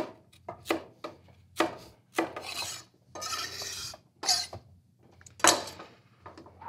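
Kitchen knives chopping on wooden cutting boards, cubing butter and dicing vegetables: irregular sharp knocks of the blades on the wood, with two short scraping sweeps of a blade across a board between about two and four seconds in.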